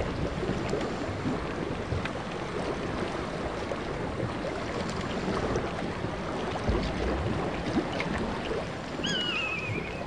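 Broken river ice drifting in the spring breakup: a steady rush of moving water and ice, with many small crackles and knocks as floes grind together. Near the end a bird gives one wavering, falling call.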